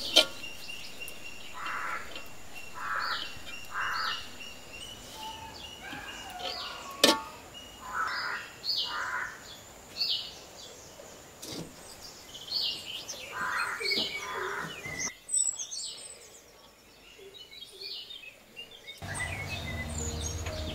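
Birds calling and chirping over and over in short phrases, with a few sharp knocks, one near the start and one about seven seconds in. About two seconds before the end a low steady hum with held tones comes in.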